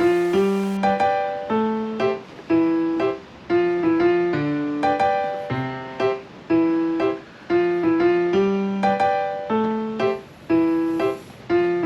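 Background piano music: a light, repeating pattern of struck notes and chords at a steady, bouncy pace.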